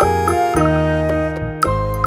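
Background music: a melody of short notes over held bass notes, with a steady beat about twice a second.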